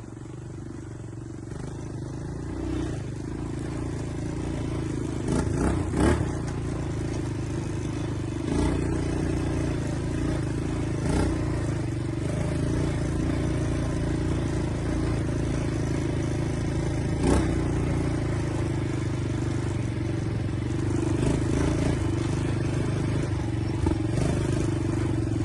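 ATV engine running steadily as it is ridden, growing louder over the first few seconds, with a few sharp knocks and rattles now and then.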